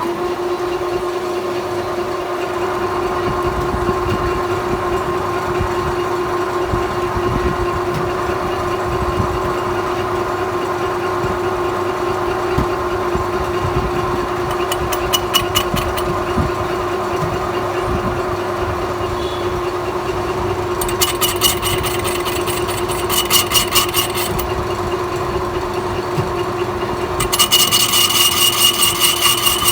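Metal lathe running with a steady hum. Partway through and again near the end come bursts of rapid high-pitched ticking, which become continuous in the last few seconds.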